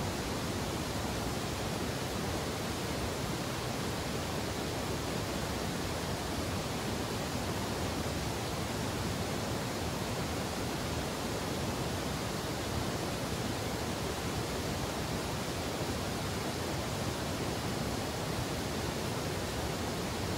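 Steady, even rush of fast-flowing river water tumbling through white water.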